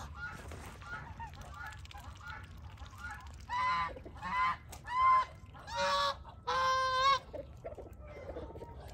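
Chinese goose calling: a run of soft short calls, then five loud honks spaced under a second apart, the last one drawn out.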